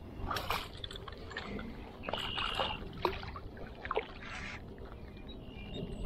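River water splashing and sloshing in short bursts around a hooked smallmouth bass as it is brought in and landed by hand, with a couple of sharp clicks about three and four seconds in.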